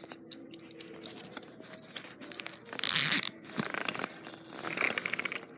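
Scissors snipping through a plush toy's fabric, with the fabric and cotton stuffing rustling and crinkling as it is handled; the loudest rustle comes about three seconds in.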